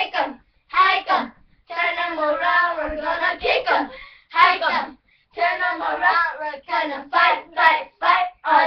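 Young girls chanting a cheerleading cheer together in a sing-song rhythm, in short phrases with brief breaks between them.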